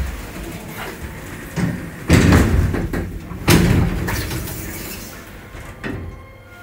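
The damaged stainless-steel sliding doors of a Schindler hydraulic elevator bang and rattle several times. The two loudest knocks come about two and three and a half seconds in, each with a rattle that dies away.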